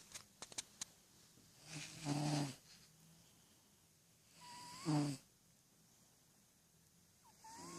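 A sleeping cat snoring: three snores about two and a half to three seconds apart, each a breathy rasp with a low buzzing pitch, the last starting just before the end.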